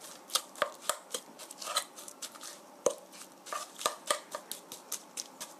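Metal spoon clinking and scraping against a stainless steel bowl while mixing seasoned ground pork: a string of irregular sharp taps, several a second.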